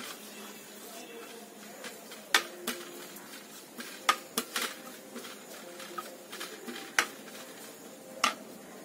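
Wooden spatula stirring in a large metal pan, knocking against it several times: sharp, separate clacks a second or so apart over a faint steady background.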